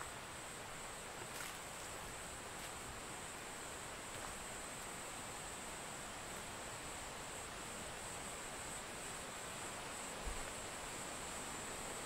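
Steady rush of a valley stream, with a continuous high insect trill over it. A few faint ticks in the first seconds and a soft low thump near the end.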